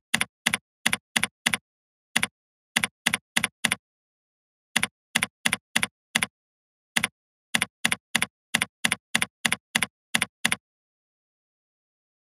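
Typing on a computer keyboard: about thirty keystrokes, each a quick double click, in uneven runs with short pauses and silence between strokes, stopping about ten and a half seconds in.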